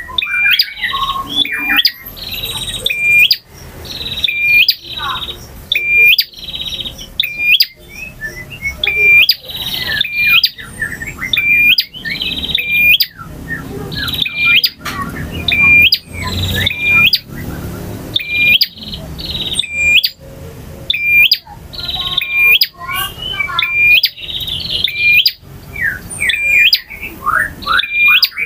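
Male prenjak (a prinia) singing loudly and without a break: sharp, scolding chirps repeated about once a second, mixed with quick rising whistled notes.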